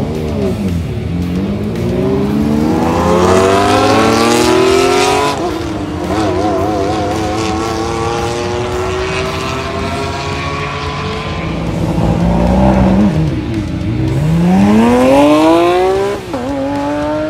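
Supercar engines accelerating hard down a runway, climbing in pitch through the gears, with the pitch dropping sharply at each upshift, three times in all.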